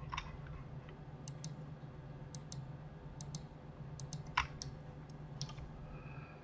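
Scattered computer mouse and keyboard clicks, many in quick press-and-release pairs, with one louder click a little past the middle, over a low steady hum.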